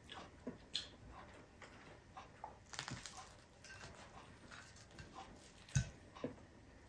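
Faint crackles and crunches of crispy fried milkfish (daing na bangus) being torn apart by hand and chewed, with a single louder knock near the end.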